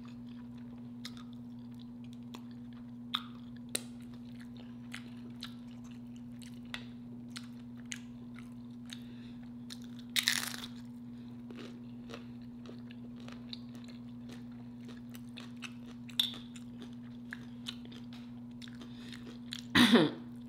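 Close-up crunching and chewing of loaded tortilla chips (nachos with cheese and chili): small crisp crunches all through, a loud crunching bite about ten seconds in, and another loud burst near the end. A steady low hum runs underneath.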